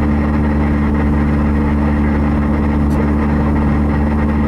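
Steady low hum of a running vehicle engine, unchanging throughout.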